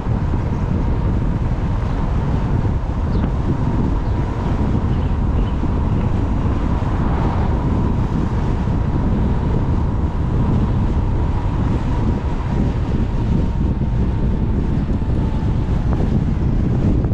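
Wind rushing over the microphone while riding a 3.2 kW CSC City Slicker electric motorbike, with a faint steady whine underneath that dips slightly near the end.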